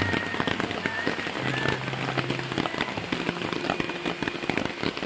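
Heavy rain falling steadily, a dense patter of drops on the ground and tents.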